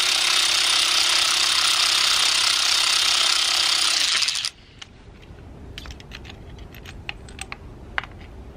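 Cordless power ratchet running steadily with a spark plug socket, spinning a spark plug out of a VW 2.0 TFSI engine, then stopping abruptly about four and a half seconds in. Afterwards a few light clicks of the tool and socket being handled.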